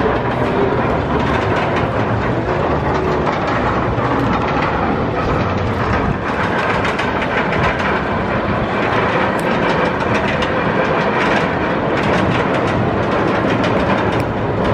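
Dive roller coaster train climbing the chain lift hill: a steady mechanical clatter of the lift chain with many quick clicks running through it.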